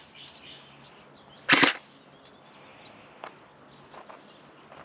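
Electric gel blaster firing one short rapid burst about a second and a half in, a quick rattle lasting about a quarter of a second.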